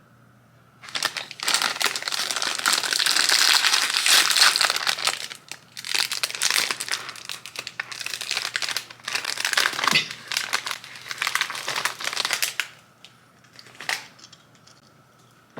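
Crinkling and rustling, as of something crinkly being handled, in long bursts with brief pauses for about twelve seconds, then a couple of faint clicks.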